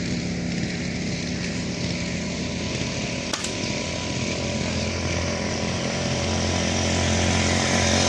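A small engine running steadily at an even pitch, growing louder over the last few seconds, with one short click about three and a half seconds in.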